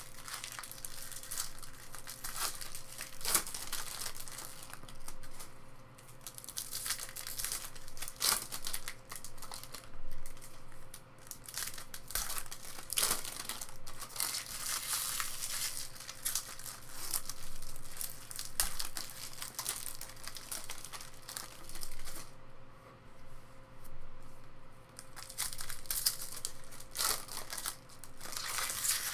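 Foil trading-card pack wrappers crinkling and tearing as packs of 2018 Topps Chrome Baseball are opened by hand, with cards being handled. The rustles and sharp crackles come irregularly.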